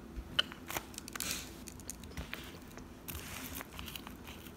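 Soy sauce poured from a bottle with a plastic flip-top spout into a small saucer: a few faint clicks and soft hissy trickling.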